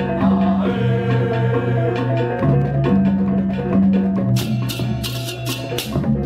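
Background music with a bass line and percussion; a fast, high rattling rhythm joins a little past four seconds in.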